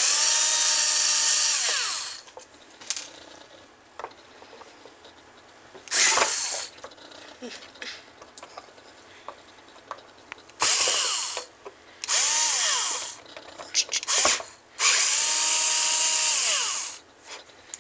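Power drill driving out the screws of a hard drive's casing, run in several short bursts that spin up, hold a steady whine and wind down, with small clicks from the drill and screws in the gaps between.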